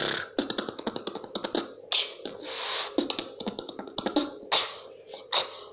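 Vocal beatboxing into hands cupped over the mouth: a quick run of mouth clicks, then short percussive hits and hissing bursts in a loose rhythm, with one longer hiss near the middle.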